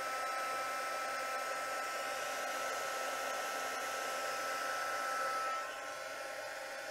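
An embossing heat tool blows hot air, a steady whir with a thin whine, melting clear embossing powder on a stamped card. It gets quieter about five and a half seconds in.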